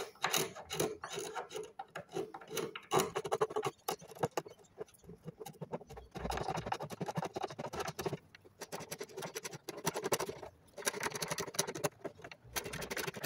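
Loose carbide scraper blade, taken out of a Bahco carbide scraper, scraping old finish off carved hardwood fretwork in short, irregular strokes.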